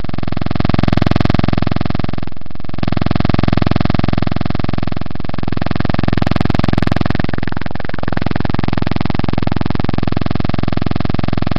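A loud, steady electronic-sounding buzz made of several fixed tones over a dense hiss, dipping briefly about two seconds in.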